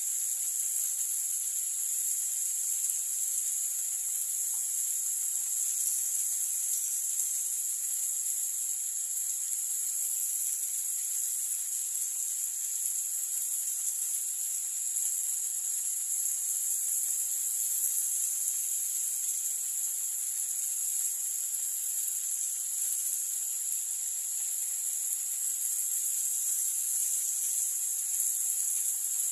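A steady, high-pitched hiss that holds unchanged throughout, with no knocks or clicks.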